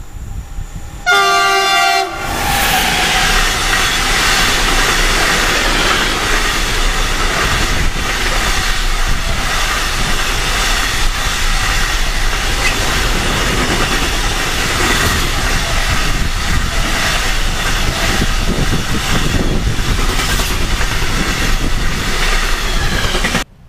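A Bombardier TRAXX class 186 electric locomotive gives one short horn blast about a second in. Its intermodal container freight train then passes close by, with loud, steady wheel-on-rail rumble and clatter from the wagons.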